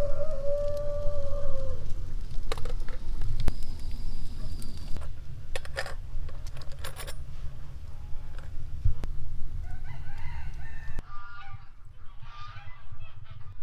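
A rooster crows once at the start, one drawn-out call lasting nearly two seconds. Then come a few sharp clinks as the small porcelain coffee cup and metal spoon are handled on the copper saucer.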